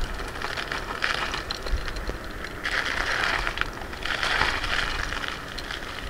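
Kugoo Kirin G3 electric scooter being ridden: a run of clicks and rattles from the scooter over a rushing noise, with two stronger scraping surges about three and four and a half seconds in.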